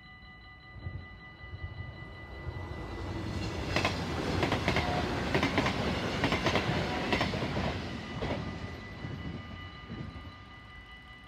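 An NS VIRM double-deck electric train passes over a level crossing, with its wheels knocking over the rail joints. Its noise swells in over the first few seconds, is loudest in the middle and fades after about 8 s. Underneath, the crossing's electronic warning bell rings steadily.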